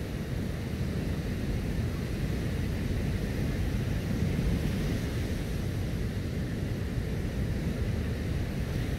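Steady wind rumbling on the microphone, over the continuous wash of surf.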